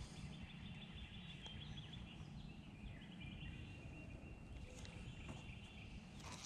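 Faint outdoor ambience: a steady high-pitched trill, with a run of rapid chirps in the first couple of seconds, over a low rumble.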